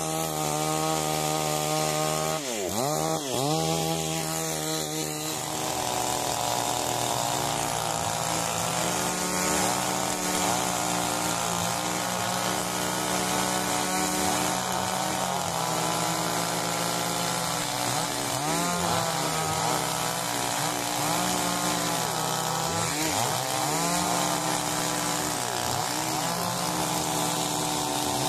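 Chainsaw engine running hard while cutting wood. Its pitch drops sharply and comes back up twice in the first few seconds, then holds high with repeated brief dips and recoveries.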